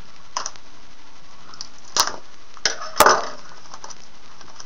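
Cardboard hobby box of trading cards being handled and opened: a few sharp clicks and knocks, the loudest about three seconds in with a brief crackle after it.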